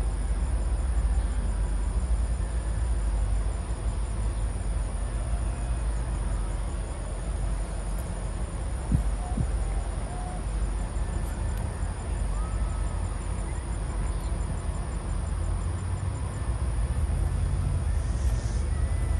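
Insects chirring in a fast, even pulse over a steady low rumble, with one short thump about halfway through.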